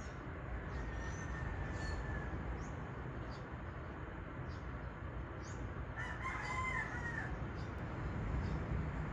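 A rooster crowing, most clearly once for about a second and a half around six seconds in, with a fainter crow about a second in, over a steady low rumble.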